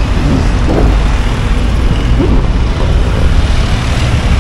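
Steady road traffic noise from cars, a jeepney and motorcycles passing on a busy multi-lane road, a constant rumble of engines and tyres.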